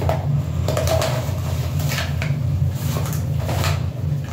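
Yellow padded mailer envelope being handled and opened, with a series of short crinkles and taps as the contents are pulled out, over a steady low hum.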